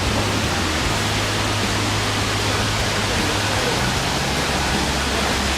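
Waterfall running, a steady even rush of falling water.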